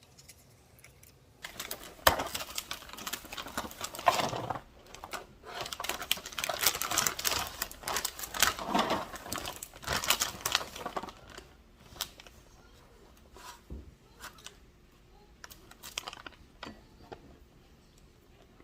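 Dense small clicks, taps and rustling for about nine seconds, starting a second and a half in, then a few scattered clicks.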